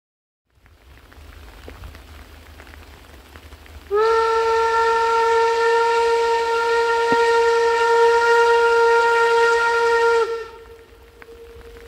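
Steam locomotive whistle: one long, steady blast of about six seconds that starts about four seconds in and stops abruptly, over a background hiss of rain.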